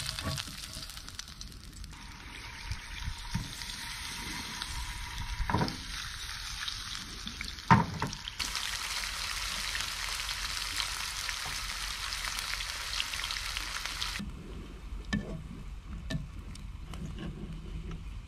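Fish and vegetables sizzling in a frying pan on a portable gas stove, with a few sharp knocks of a utensil against the pan. Near the end the sizzling stops and only light clicks remain.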